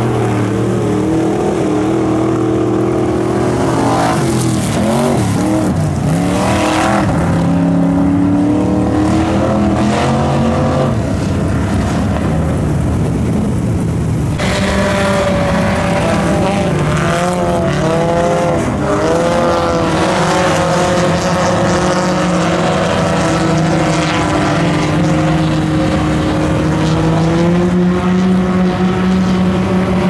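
Dirt-track stock cars running practice laps, their engines rising and falling in pitch as they come off and on the throttle through the turns. The sound changes abruptly about halfway through.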